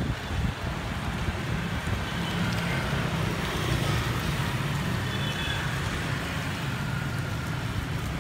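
Road traffic: a steady low rumble of motor vehicles running past on the street.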